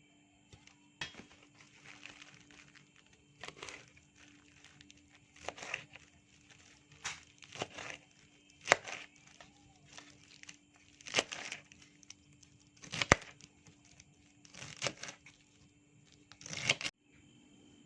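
Irregular, noisy handling strokes of kitchen food preparation, about one every second or two, with a crinkling, scraping character.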